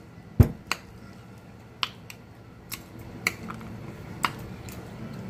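Close-miked eating sounds: about six sharp, wet clicks and smacks spread over a few seconds, the loudest about half a second in, as slow-cooked turkey meat is pulled off the bone by hand.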